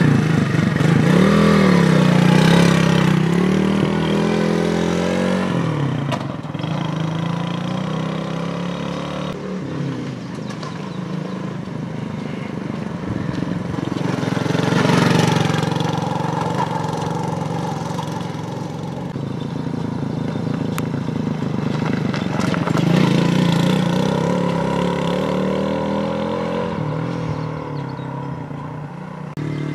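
Engine of a SWIFT moped revving with rising and falling pitch in the first few seconds, then running as the moped is ridden, growing louder as it comes close, about halfway through and again a little later, and fading toward the end.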